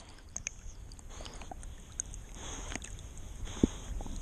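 Muffled water sloshing and lapping around a swimming dog, picked up by a camera on its back at the waterline, with a single sharper knock about three and a half seconds in.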